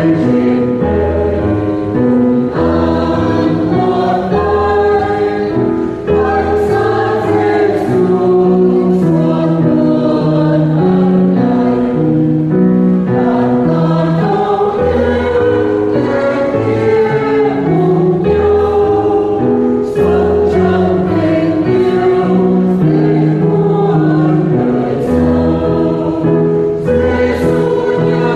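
A choir singing a Vietnamese Catholic hymn in sustained, legato phrases over instrumental accompaniment with a bass line.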